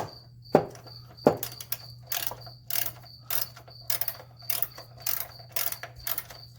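Ratchet wrench working a 10 mm bolt off a body ground strap, clicking in short bursts about twice a second.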